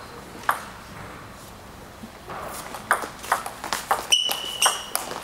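Table tennis ball clicking off the rackets and the table: a single click about half a second in, then a quick rally of clicks from about three seconds in, roughly three a second. Two short high squeaks come near the end.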